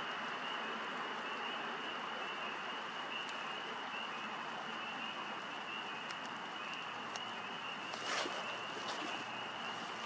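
Steady outdoor ambience: an even hiss with a continuous high-pitched tone over it, and a brief rustle about eight seconds in.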